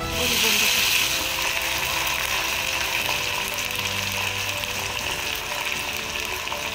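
Potato sticks frying in hot oil in a kadhai: a crackling sizzle, loudest in the first second, then settling to a steady sizzle.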